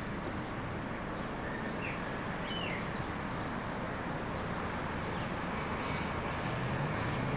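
Outdoor ambience of a steady distant engine rumble, with a few short bird chirps about two to three seconds in. Near the end a low engine note rises in pitch.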